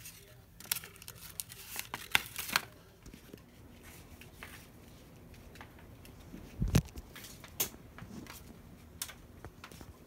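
Sheet paper crinkling and rustling as a homemade paper sign is folded and handled, then a quieter stretch with the faint steady hum of a spinning ceiling fan. About two-thirds of the way through comes one loud dull thump, followed by a lighter click.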